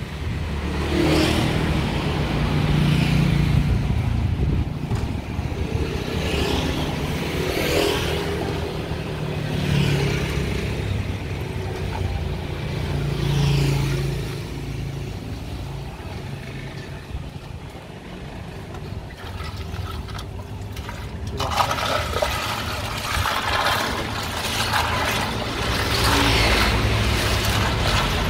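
Street traffic, vehicles passing one after another, each swelling and fading. About three-quarters of the way through, a plastic ladle starts stirring ice cubes and cincau in a plastic tub, with scraping and clinking.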